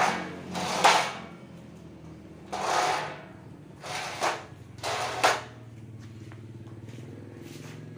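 Handling knocks and scraping clunks from a homemade motorcycle engine stand being loosened and turned, about six of them in the first five and a half seconds, then a steady low hum.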